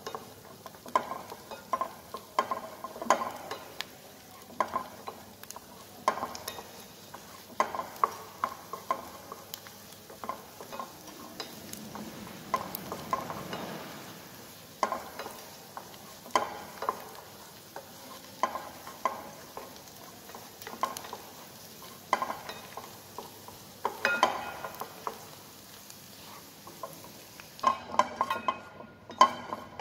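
Wooden spatula stirring chopped onion and garlic in a small pan, with repeated irregular scrapes and taps against the pan over a low sizzle as they sauté.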